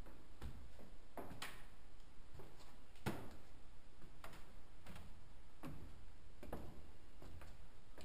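Footsteps of a person walking at an even pace, a sharp tap about every three-quarters of a second, over a steady low rumble.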